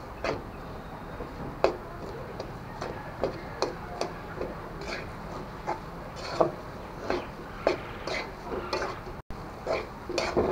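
Metal spatula knocking and scraping against a metal karai (wok) while thick mashed-potato filling is stirred and turned, giving irregular clinks about once or twice a second.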